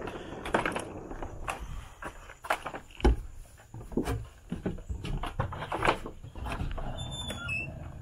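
Footsteps on concrete and wooden deck boards, with knocks and rattles from an upright vacuum being wheeled and carried while switched off; the loudest is a single thump about three seconds in. A brief high squeal sounds near the end.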